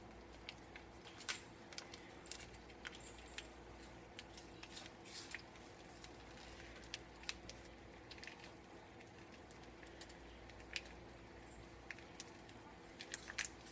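Faint scattered clicks and crinkles of small packs of Velveeta cheese being opened and handled, over a steady faint hum.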